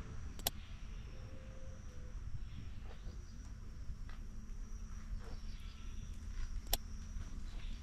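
Quiet outdoor ambience: a steady high insect trill over low rumbling noise, with two sharp clicks, one about half a second in and one near the end.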